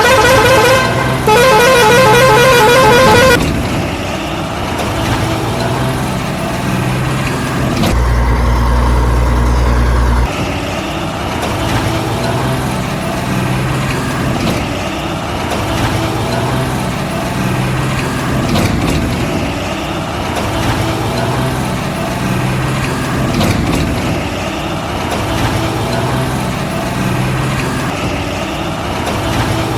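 A warbling vehicle horn sounds in two stretches over the first three seconds. Then a steady low hum sounds for about two seconds from eight seconds in, over a low pulsing sound that repeats about once a second.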